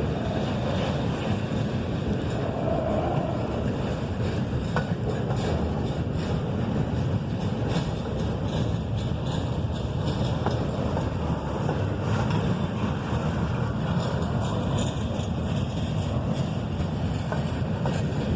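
Freight train cars rolling past: a steady rumble of wheels on the rails.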